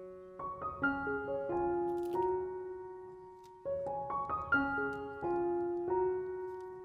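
Soft solo piano background music: short phrases of struck notes that ring and fade, with a new phrase starting about half a second in and again past the halfway point.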